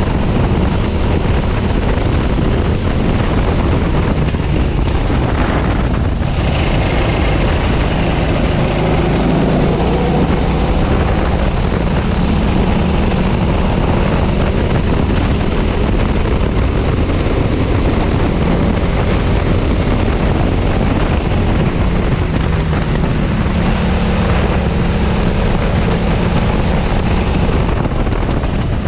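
Racing kart engine running hard at speed, heard from the driver's seat, its pitch rising and falling as the throttle opens and closes, with wind buffeting the microphone.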